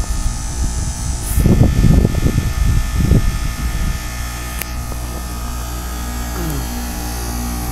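Goodman heat pump outdoor unit humming steadily during a defrost cycle. Irregular low rumbling gusts rise over the hum between about one and a half and three seconds in.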